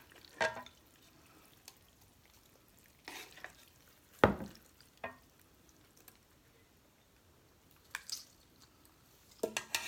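Close-up eating sounds from a bowl of instant noodles: short, scattered wet slurps and chews. A single sharp clack about four seconds in is the loudest sound.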